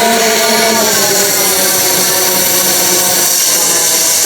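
Handheld power tool cutting into a stuck steel bearing collar: a steady hiss with a motor whine that sags and recovers in pitch as the tool loads up.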